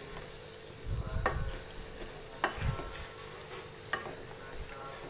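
A ladle stirring potato and ridge gourd curry in a pan while the gravy sizzles, with three sharp clicks of the ladle against the pan.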